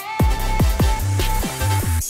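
Background electronic music: a held synth note over deep bass hits that slide down in pitch, about five in quick succession, stopping at the end.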